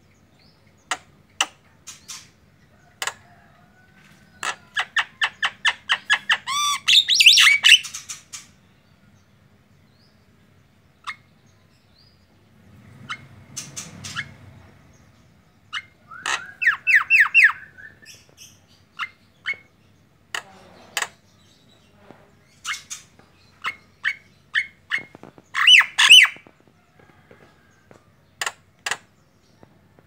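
Caged male Javan myna singing a relaxed song of sharp clicks and short chirps, broken by three runs of rapid repeated whistled notes, the loudest near the end.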